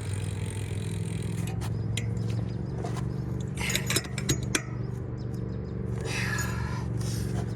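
BMX bike being ridden and handled: sharp metal clicks and clinks, with a quick clatter of metal parts about four seconds in, over a steady low hum.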